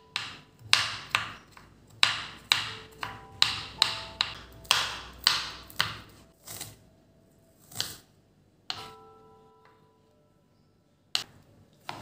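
Kitchen knife chopping garlic and green chillies on a wooden cutting board: a quick run of sharp taps, about three a second, that thins out after about six seconds. A couple of seconds go by without a chop before one more near the end.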